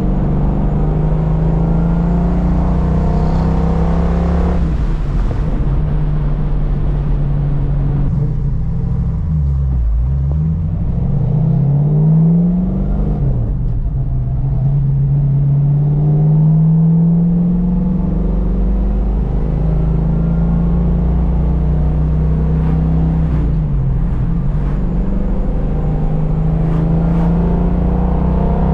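A 1970 Plymouth Cuda's 426 Hemi V8 running on the road, heard from inside the cabin. The engine note is mostly steady. About ten seconds in it sinks and climbs straight back, then dips again a few seconds later before rising as the car pulls harder.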